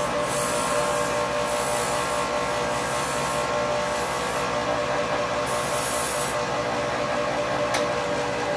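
A motor-driven shop machine running steadily: a constant mechanical drone with a steady whining tone, patches of high hiss coming and going, and one short click near the end.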